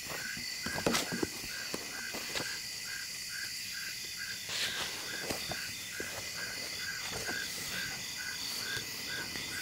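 Night insects: crickets trilling steadily, with a lower chirp pulsing about twice a second, and a few faint knocks and rustles.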